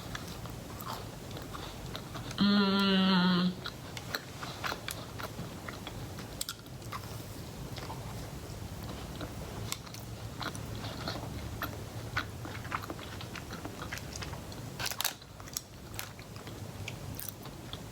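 Close-miked biting and chewing of a chocolate chip cookie with a crisp outside, full of small crunches and mouth clicks. A short, steady hummed note about two and a half seconds in, and a couple of sharper crackles near the end.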